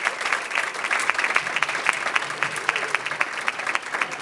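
Small audience applauding, with many separate hand claps.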